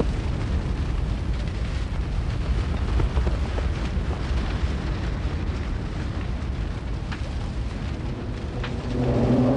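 Large fire burning with a steady low rushing rumble and scattered crackles. About nine seconds in, a deep held sound with several steady tones begins over it.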